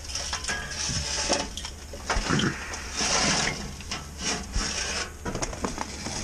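Charcoal being handled at a kettle grill: a string of rough scrapes, rustles and short clinks from the briquettes, the paper charcoal bag and the grill's metal, loudest about a second in and again about three seconds in.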